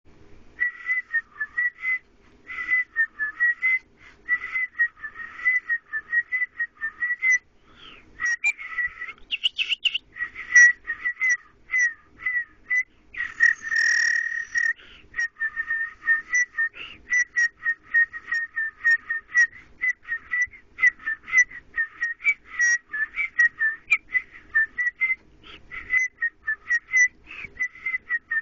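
A man whistling through pursed lips: a fast, choppy run of short notes, mostly around the same pitch, with a brief higher squeal about ten seconds in and one longer held note around fourteen seconds.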